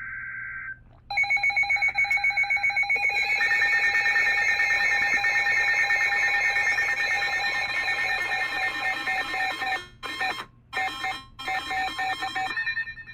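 The tail of a NOAA Weather Radio SAME data burst, then a weather alert radio's electronic alarm beeping rapidly, the signal of an incoming warning. A second alarm tone layers in about three seconds in; the sound cuts out briefly twice near ten seconds and stops just before the end.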